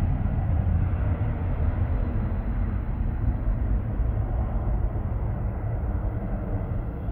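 Low, steady rumble of a distant jet airliner's engines at the airport, easing slightly toward the end.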